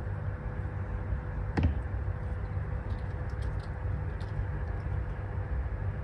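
Steady low background rumble with a constant hum, a single sharp click about one and a half seconds in, and a few faint light ticks a little later.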